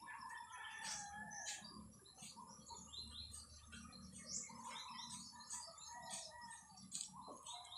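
Faint chirping of small birds: many short, high notes and a few longer wavering calls.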